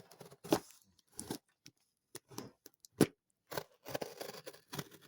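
Handling of a cardboard parcel: irregular rustling, scraping and a few sharp knocks, loudest about half a second in and about three seconds in.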